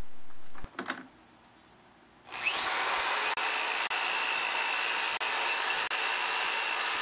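Corded electric drill spinning up about two seconds in and running steadily with an abrasive disc against the bicycle's steel frame, grinding off rust, with a faint steady whine and brief momentary dips.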